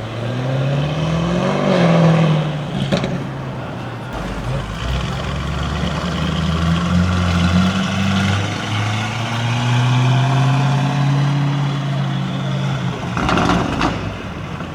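Lamborghini Urus's twin-turbo V8 through a Novitec aftermarket exhaust, revving up and falling back, then running on at low revs. Sharp exhaust crackles come about three seconds in and again near the end.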